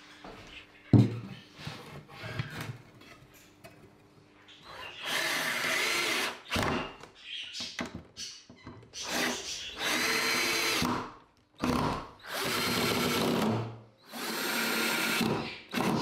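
Cordless drill driving screws into pine boards, running in several bursts of one to two seconds each with short pauses between. Before the drilling starts there is quieter handling and a single sharp knock about a second in.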